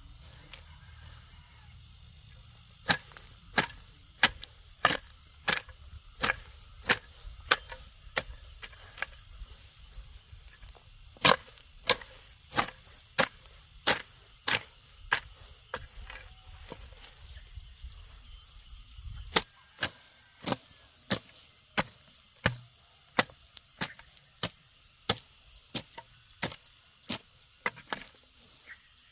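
A tool striking wood over and over, about three strikes every two seconds, in three runs with short pauses between them.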